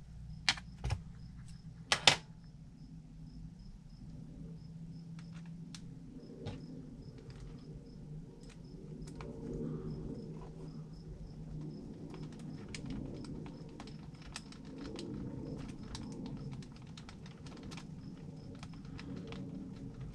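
Hex-driver work on small screws and plastic parts of an RC crawler's wheel assembly: a few sharp clicks near the start, then many light clicks and ticks as the screws are turned in and tools and parts are handled.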